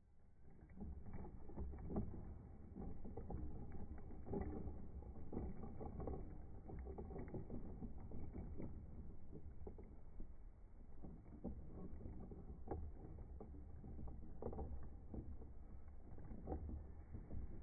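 Wood creaking and knocking irregularly over a steady low rumble, like a heavy wooden cart or wooden hull under strain.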